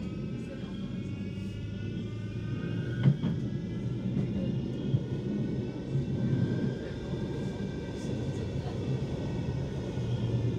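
Manchester Metrolink tram running, heard from inside the car: a steady low rumble of wheels on rail, with the electric traction motors' whine as several tones that slowly shift in pitch. A sharp clack comes about three seconds in.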